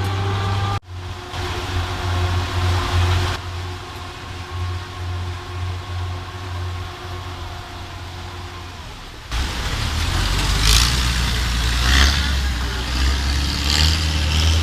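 A steady low engine drone. It changes abruptly about a second in, again a few seconds later, and again near nine seconds in, after which it is louder with surges of rushing hiss.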